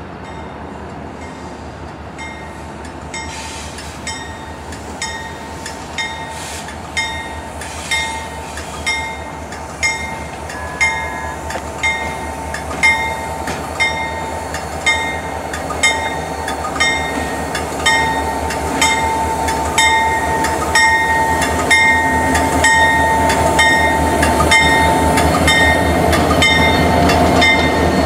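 Two diesel locomotives led by Union Pacific EMD SD70ACe 1988 approaching slowly, engines running and growing louder as they near. A locomotive bell rings steadily about once a second over the engine sound.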